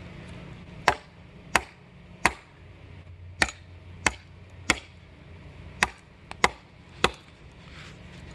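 Cold Steel Trail Hawk tomahawk chopping into wood: nine sharp strikes in three groups of three, about two-thirds of a second apart within each group.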